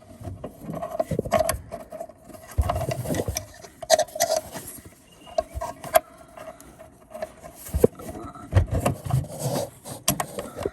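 Irregular small clicks, scrapes and rubbing of hands working a spring onto the loop end of a lawn mower's blade brake cable.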